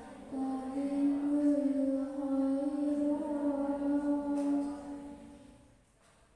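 A girl reciting the Qur'an in the melodic qiro'at style into a microphone: one long held phrase with slow turns of pitch, fading away about five and a half seconds in.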